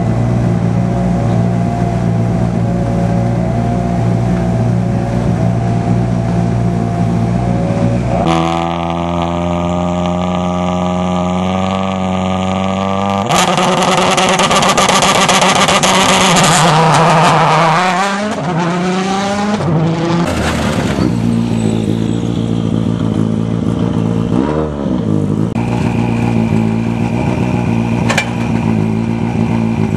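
Turbocharged four-cylinder rally cars at a stage start: engines idling steadily at the line, then one car revving hard and launching away, its engine note climbing and falling through the gears for several seconds. Afterwards another car idles at the line and gives one short rev blip.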